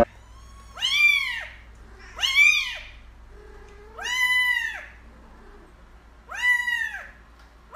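A kitten meowing again and again: four high calls about two seconds apart, each rising then falling in pitch, with a fifth starting at the very end.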